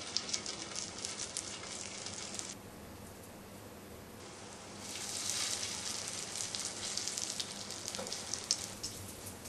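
Fish cutlet patties sizzling and crackling in hot oil on a skillet, with many small pops. The sizzling drops away about two and a half seconds in, then comes back louder a couple of seconds later.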